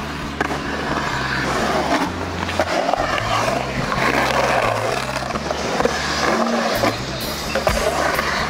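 Skateboard wheels rolling and carving across the concrete of a skate bowl: a continuous rushing rumble with a few sharp clacks of the board.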